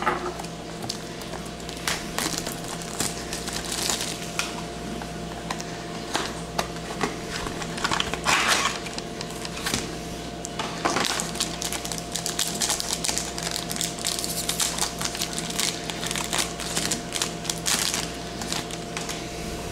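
A trading-card pack wrapper being torn and crinkled open, then the cards slid out and handled, making irregular crackling and scratching over a steady faint hum.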